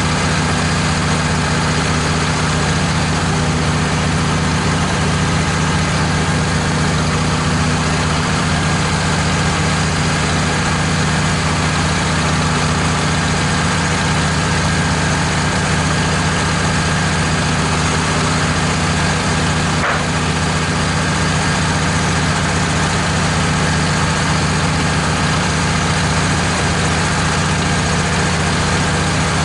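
Wood-Mizer LT15 portable band sawmill running at a steady, even speed, its blade sawing a board off a red oak cant.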